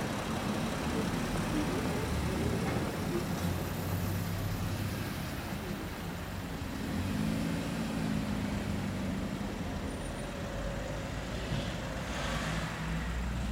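Steady street traffic noise: engines and tyres of road vehicles passing, with a louder, hissier pass near the end.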